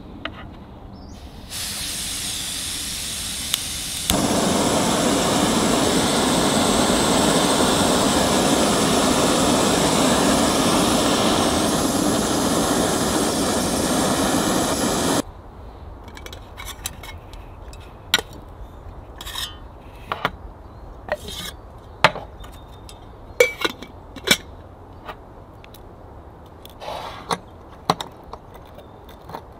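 Snow Peak LiteMax canister stove: butane gas hisses from the opened valve, then about four seconds in the burner lights and runs with a louder, steady flame noise until it cuts off suddenly about fifteen seconds in as the gas is shut off. After that come scattered metal clicks and clinks as the stove is handled on its gas canister.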